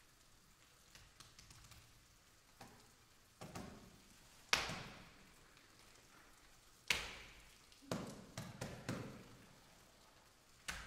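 A deep pile of dry autumn leaves crackling and rustling as people move and drop into it. There are about half a dozen sudden crunching rustles, the loudest about four and a half and seven seconds in, each one fading away over about a second.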